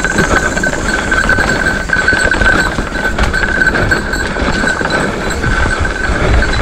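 Mountain bike rolling fast over a rough dirt trail: a low rumble of tyres and wind with many small rattles and knocks from the bike. A steady high-pitched drone runs underneath.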